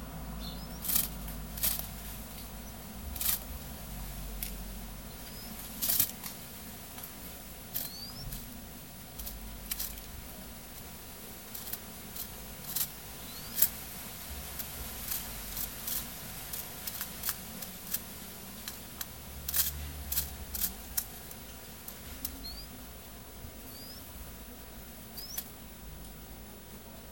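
Ground dove pecking at cracked corn and bread on newspaper: irregular sharp taps, sometimes several in quick succession. A few faint short high chirps come now and then.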